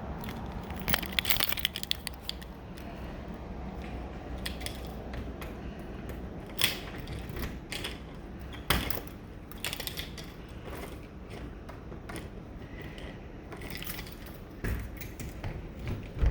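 Keys jangling and a door lock being worked, with a series of sharp clicks and small metallic rattles over a steady low background hum.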